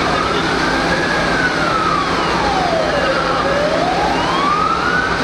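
Emergency vehicle siren in a slow wail. It is highest about a second in, falls to its lowest a little past three seconds, and climbs again near the end, over steady background noise.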